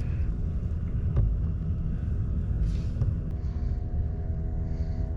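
Small Honda 2.3 hp outboard motor running steadily on the water, a low rumble with wind buffeting the microphone.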